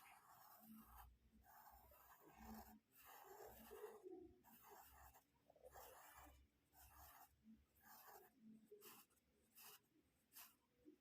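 Faint, irregular scratchy strokes, one every half second to a second, of a muggu (kolam) pattern being drawn by hand on a floor.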